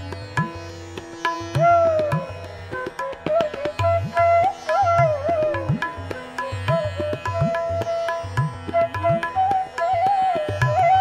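Background music in Indian classical style: a plucked string melody with sliding, bending notes over a tabla beat.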